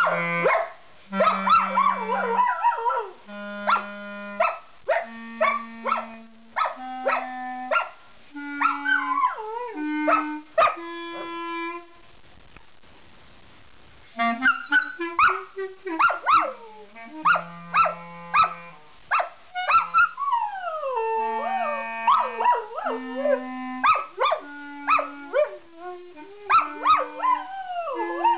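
A clarinet plays slow rising scales, one held note of about a second at a time, while a standard poodle howls along in wavering, sliding pitches. About halfway through the playing stops for about two seconds, the dog howls alone, and then the scale starts again from the bottom.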